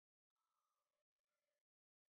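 Near silence, with stretches of complete digital silence and only the faintest traces of sound.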